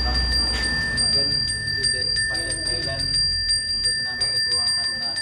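A Balinese priest's handbell (genta) rung continuously in a quick, even rhythm, several clapper strikes a second over a steady bright ring, as part of a Hindu blessing rite.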